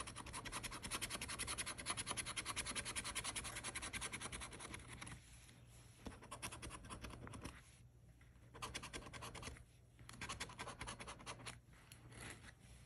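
A coin-shaped scratcher scraped quickly back and forth over the scratch-off coating of an instant lottery ticket, in rapid strokes. The scratching runs continuously at first, then comes in shorter spells with brief pauses about five, eight and ten seconds in.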